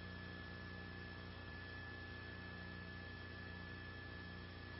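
Steady electrical hum and hiss on the audio line, with a thin, constant high tone and nothing else.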